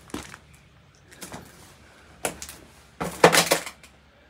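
Footsteps on a floor strewn with broken wood boards and plaster debris: a few scattered crunches and knocks, then a louder, longer crunching clatter about three seconds in.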